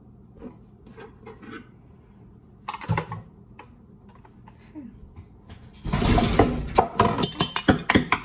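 White electric hand mixer: light clicks as the metal beaters are pushed into their sockets, then about six seconds in a loud, dense clattering rattle begins as the mixer is run with its beaters.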